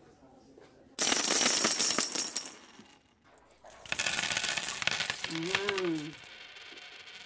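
Jingling, metallic shimmering sound in two loud bursts, the second with a short pitched tone that rises and falls; it cuts off suddenly near the end.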